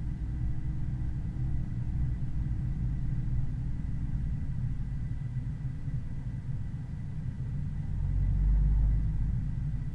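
A car driving steadily: a low rumble of engine, tyres and wind, with a louder low surge of rumble about eight seconds in.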